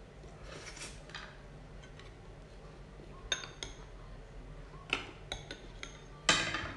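Metal spoon clinking against a ceramic soup bowl as it scoops soup: a soft rustle near the start, then a few light clinks from about three seconds in and a louder ringing clink near the end.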